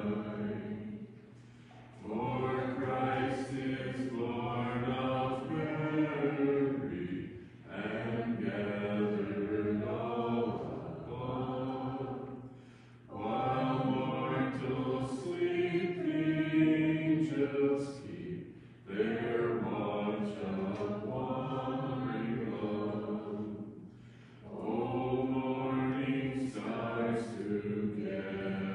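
A hymn being sung in phrases of about five seconds, each followed by a short break for breath.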